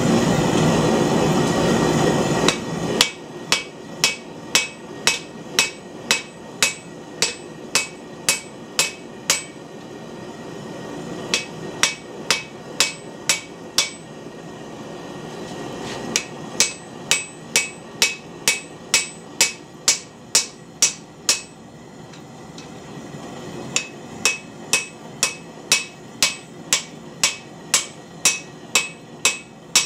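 Rounding hammer forging a red-hot bar of tough medium-high carbon steel on the anvil: steady runs of blows, about two to three a second, each with a short metallic ring, broken by brief pauses. A loud steady rushing noise fills the first three seconds before the hammering starts.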